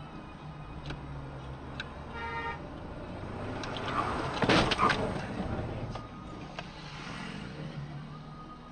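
Car driving in city traffic, recorded by a dashcam with steady road noise. A short beep comes about two seconds in, then the loudest part, a jumble of sharp noises about four to five seconds in, as another car swerves across close in front.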